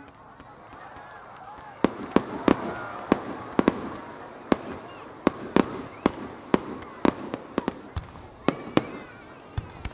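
Aerial fireworks shells bursting: a rapid, irregular string of sharp bangs, nearly twenty of them, starting about two seconds in, with onlookers' voices underneath.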